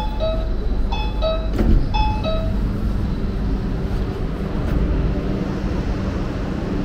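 Shiraz metro train rumbling steadily, with a two-note falling electronic chime sounding three times, about a second apart, and a single knock about a second and a half in. A steady low hum joins the rumble from about three seconds in.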